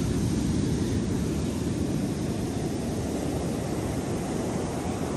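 Ocean surf washing up a sandy beach: a steady low rumble of breaking waves, mixed with wind buffeting the microphone.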